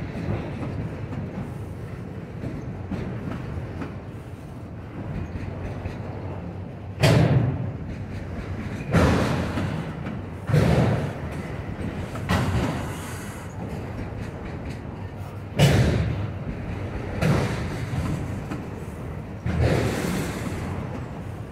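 Norfolk Southern freight train cars rolling past with a steady low rumble, and a loud clunk every couple of seconds as the wheels cross a rail joint.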